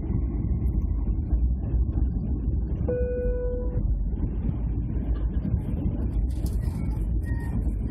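Steady low rumble of an Airbus A321's cabin on approach to landing: engine and airflow noise heard from a window seat over the wing. A single short steady tone sounds once about three seconds in.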